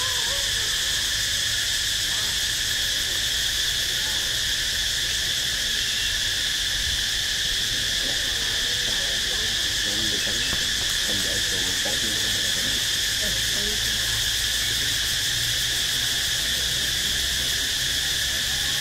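Steady, shrill drone of insects in chorus, unbroken throughout, with faint wavering calls underneath in the middle.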